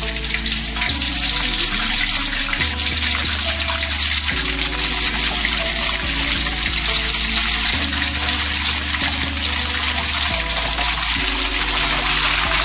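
Slices of beef tongue deep-frying in hot oil in a wok, a steady sizzle, with background music and its bass line under it.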